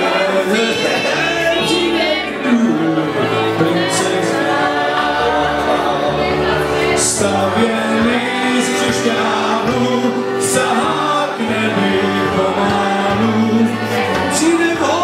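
A vocal group singing a song in harmony, several voices holding chords together.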